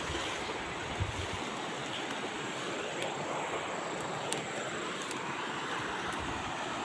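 Steady rush of a stream, with light rustling of fern fronds being handled.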